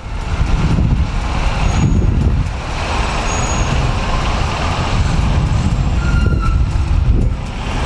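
Motorcycle ride noise: a Bajaj Dominar 400's single-cylinder engine running at low speed, with wind rumble on the microphone and the sound of heavy truck traffic around it. A few brief high squeals cut through about two, three and a half, and six seconds in.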